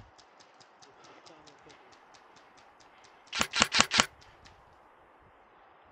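Airsoft gun firing a quick string of about five shots in under a second, near the middle. Before it come faint, regular ticks about five times a second.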